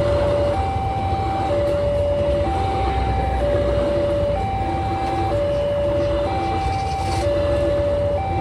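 Railway level-crossing warning siren sounding a two-tone hi-lo alarm, a lower and a higher tone alternating about once a second, which warns that a train is approaching. A steady low rumble of vehicles runs underneath.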